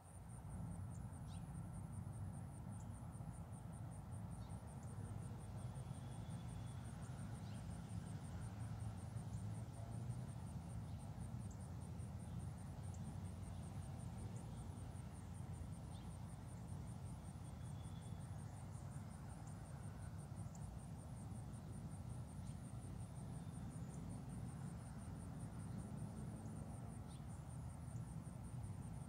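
Insects trilling steadily, a fast, even, high-pitched pulsing that never stops, over a steady low rumble. A few faint short high chirps come through now and then.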